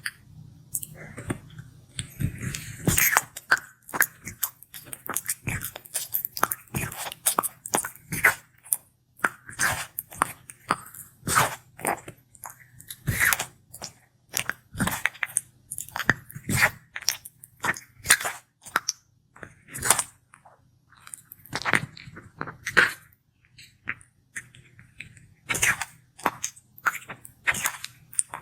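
Sulcata tortoise biting and chewing star fruit: a run of irregular crunching bites with brief pauses between them.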